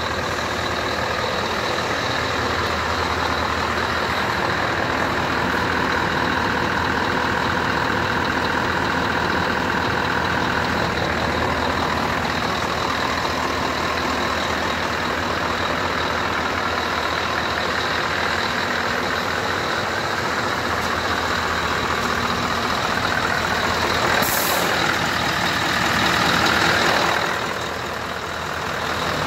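Scania R-series tractor unit's diesel engine idling steadily, with a short sharp hiss of air about 24 seconds in.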